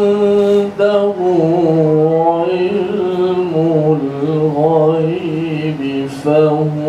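A man reciting the Qur'an in a slow, melodic chant into a handheld microphone, holding long notes with ornamented turns in pitch, and pausing for breath about a second in and again near the end.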